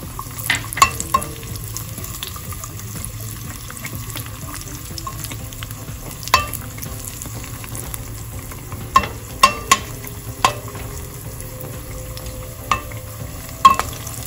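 Cashews and raisins frying in ghee in a pan with a steady sizzle, stirred with a metal spatula that clicks and scrapes against the pan about ten times, the loudest click near the end.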